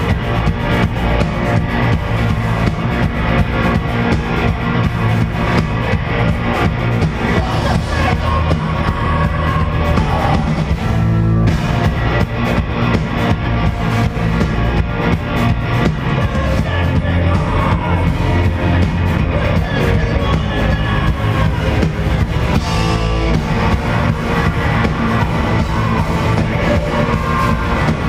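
Live hardcore punk band playing loudly: distorted electric guitars, bass and pounding drum kit, with shouted vocals, recorded from the audience.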